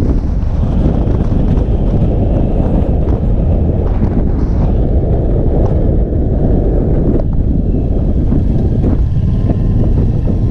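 Steady wind rush on the microphone of a moving motorcycle, with the Indian Chief Bobber's V-twin engine running underneath at cruising speed.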